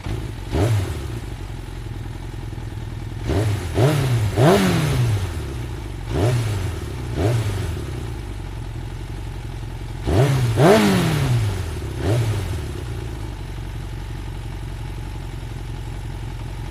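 Motorcycle engine idling after starting, blipped with short twists of the throttle about nine times, each rev rising quickly and dropping back to idle, with the blips grouped in bunches.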